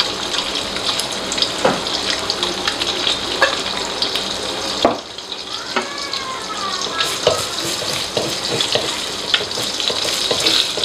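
Egg frying in hot oil in an aluminium wok: a steady sizzle with many short crackling pops of spitting oil, easing briefly about halfway. Near the end a spatula starts stirring the egg in the wok.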